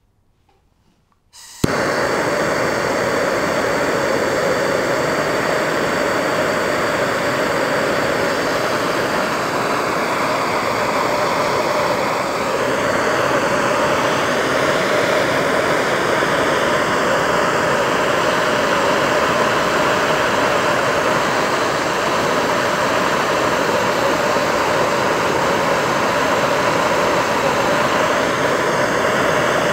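Propane hand torch on a Coleman propane cylinder lighting with a sharp pop about a second and a half in, then burning steadily with a loud, even rushing hiss.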